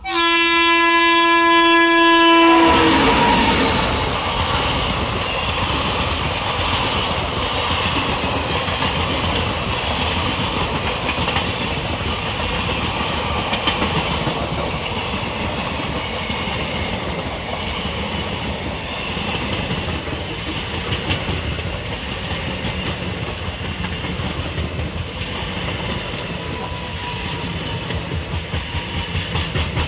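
Locomotive horn sounded in one long blast, its pitch sagging slightly as it cuts off about two and a half seconds in. Then an express passenger train passes at speed: the steady rush and rumble of coaches, with a rhythmic clickety-clack of wheels over rail joints near the end.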